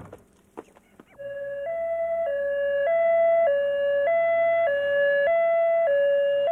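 Ambulance siren in its two-tone hi-lo mode, starting about a second in and switching steadily between a lower and a higher note about every half second.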